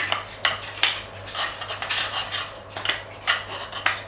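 Small painted wooden walking toy being handled on a table, its wooden parts giving an irregular string of light clicks and knocks, two or three a second.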